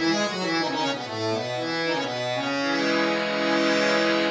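Hand-pumped harmonium with two banks of Jivan Lal Ratti Lal reeds playing a short phrase of changing notes, then settling on a long held note that stops abruptly.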